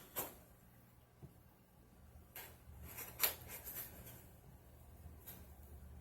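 Faint scrapes and clicks of a knife and hands working at a cardboard box to cut it open, a handful of short strokes with the loudest a little past the middle, over a low steady hum.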